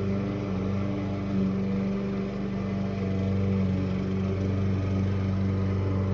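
Small petrol engine of lawn-care equipment running steadily at a constant speed.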